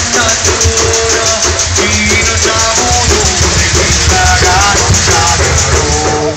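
Live bottari folk music (pastellessa): a band beating wooden barrels as percussion in a fast, steady rhythm, with singing over it.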